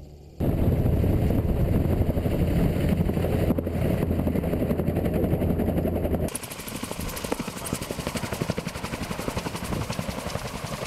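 Gyroplane engine and propeller running close up, with a steady low hum. About six seconds in the sound cuts to a rapid, even pulsing.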